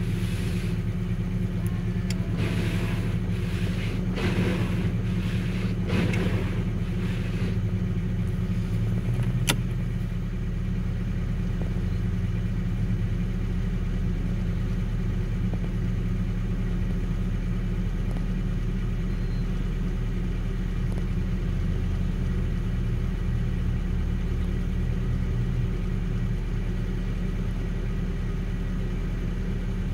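Vehicle engine idling steadily, heard from inside the cab as it runs after a cold start. A sharp click comes about ten seconds in, and the idle then runs a little quieter.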